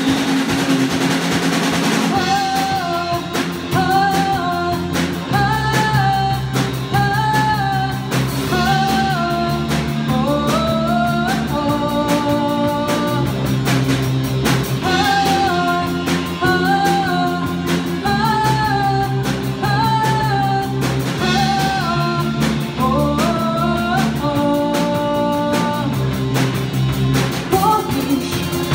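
A song: a sung melody over sustained bass notes, guitar and a drum kit keeping a steady beat. The voice comes in about two seconds in, after a short instrumental opening.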